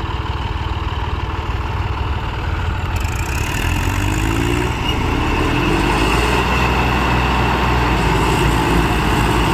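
Diesel engines of a John Deere 5305 and a Massey Ferguson 1035 tractor running hard under load, chained together and pulling against each other. The engine sound grows louder a few seconds in.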